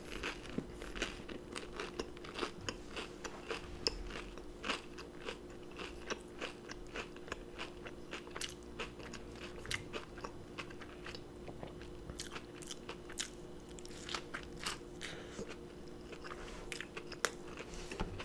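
Close-up chewing of a battered onion ring dipped in nacho cheese: soft crunches and wet mouth clicks, several a second and irregular. A faint steady hum runs underneath.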